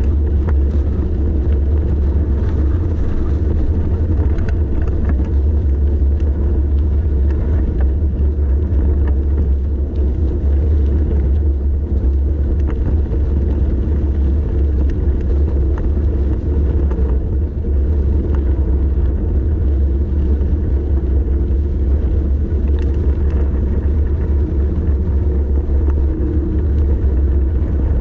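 Steady loud rumble of wind buffeting the microphone on a bicycle descent, with rolling tyre and road noise underneath.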